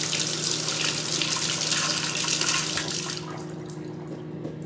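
Kitchen faucet running water onto raspberries and blueberries in a stainless steel mesh strainer, rinsing them. The water is turned off about three seconds in.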